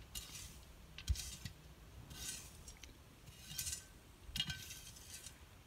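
A few short, soft scrapes and rustles about a second apart, with one dull knock about a second in.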